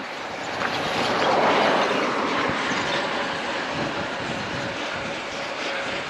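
A vehicle passing at speed on the road: tyre and engine noise swelling about a second in, then slowly fading, over a faint steady hum.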